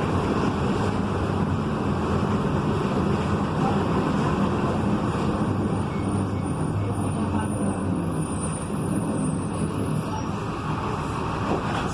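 Volkswagen 17.230 EOD bus running steadily, with a loud growl from its driveshaft and transmission over the engine drone.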